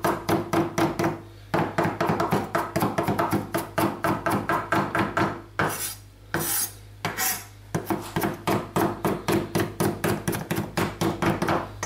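Chef's knife rapidly chopping garlic and parsley together on a wooden cutting board, several quick knocks a second. A little past halfway the chopping stops for about two seconds while the blade scrapes the pile back together, then it starts again.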